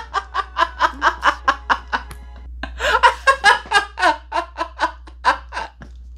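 A man laughing hard and uncontrollably: a fast run of laughs at about five a second, a short break for breath about two seconds in, then a second run that trails off near the end.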